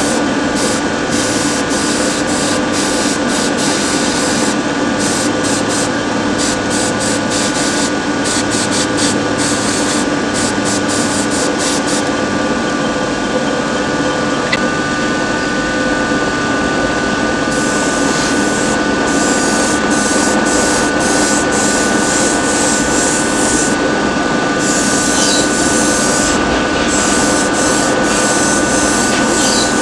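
Paint spraying onto small diecast model car parts in many short hissing bursts, over the steady hum of a motor. The spraying stops for about five seconds midway, then resumes in longer bursts.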